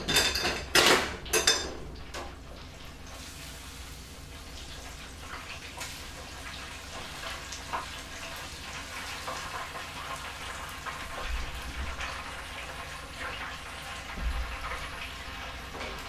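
Panko-breaded chicken katsu deep-frying in an electric deep fryer: a steady sizzle of hot oil with small crackles, oil at about 350°F. A few sharp clatters in the first two seconds.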